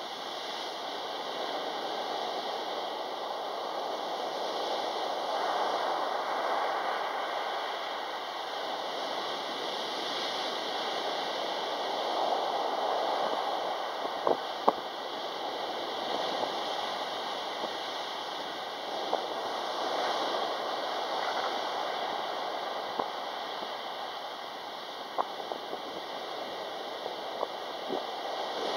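Sea surf breaking and washing up a pebble beach: a steady rush that swells and eases with each wave. A few sharp clicks come through about halfway and again near the end.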